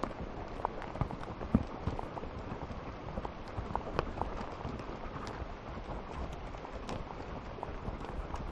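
Horses walking on a grassy dirt trail, heard from the saddle: irregular hoof thuds and sharp clicks and creaks of saddle and tack over a steady rustling, with two louder clicks about a second and a half and four seconds in.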